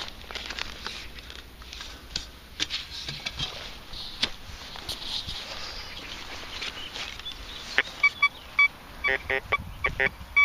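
Spade digging in soil, with scattered scrapes and knocks, then from about eight seconds in a metal detector sounds a run of short high beeps, signalling a metal target.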